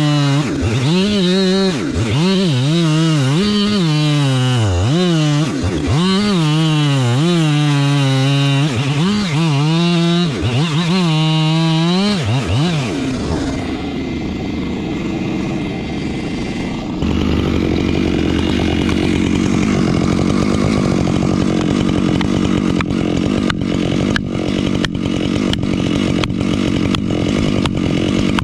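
Gas chainsaw revved up and down repeatedly, about once a second. It then settles into a steadier, lower-pitched run under load, cutting into a stump. Toward the end there are regular sharp ticks.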